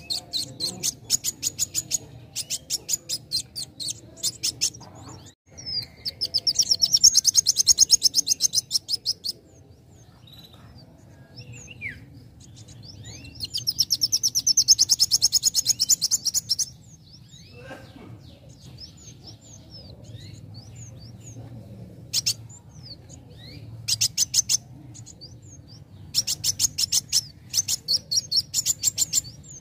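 Young male sunbird singing in fast bursts of high, chattering notes, with two long rapid trills a few seconds in and near the middle, and quieter gaps between the bursts.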